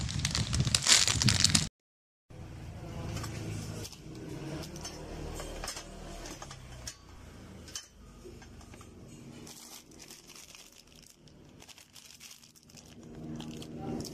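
Clear plastic bag of TV-mount screws being handled and crinkling, cut off suddenly after under two seconds. After the break comes quieter handling noise with scattered clicks.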